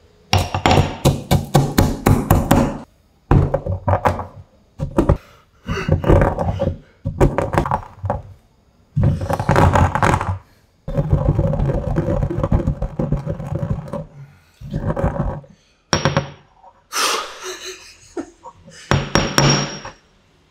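Mortar and pestle crushing whole coffee beans: bursts of rapid pestle strikes and grinding against the bowl, a second or two at a time with short gaps between.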